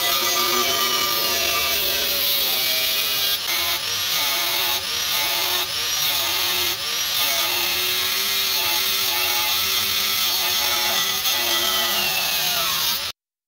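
A power tool cutting 1/8-inch 1084 carbon-steel flat stock into throwing-knife blanks, with a steady high whine that dips briefly several times as the cut eases. It cuts off suddenly near the end.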